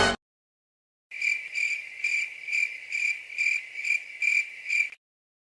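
Cricket chirping sound effect: a steady run of high, evenly spaced chirps, about two a second, that starts about a second in and cuts off suddenly near the end. It is the stock comedy "crickets" effect used to mark an awkward silence.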